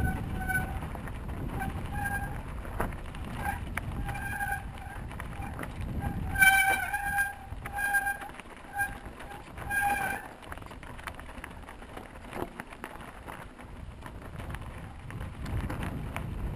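Mountain bike brakes squealing in short, repeated bursts at one steady pitch through the first ten seconds, loudest about six and a half seconds in, over a low rumble of wind on the microphone as the bike rides.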